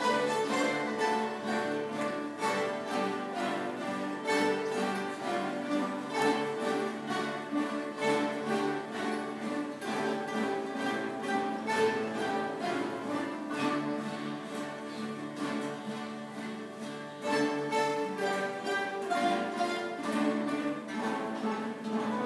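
An ensemble of 88 acoustic guitars playing a piece together, many plucked strings sounding at once. The music goes softer a little past the middle, then comes in louder again for the last few seconds.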